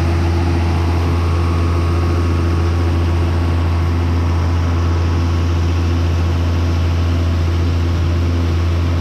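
Farm machinery engine running at a steady speed: a loud, deep, unchanging drone.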